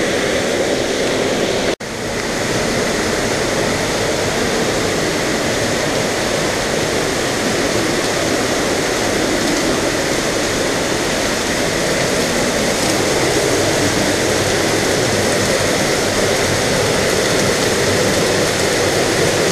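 Gorge waterfall pouring close by: a loud, steady rush of falling water. The sound cuts out for a split second about two seconds in.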